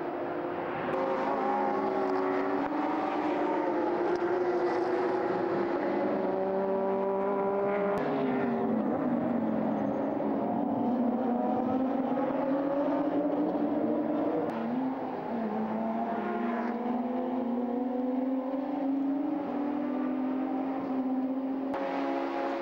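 Several GT race cars' engines running hard, the engine notes rising and falling as they accelerate and change gear, with a few abrupt changes in pitch.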